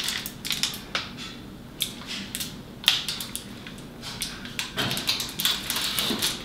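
Metal baking pan going onto an oven rack and the rack being pushed in: scattered light metal clicks and scrapes, busier near the end.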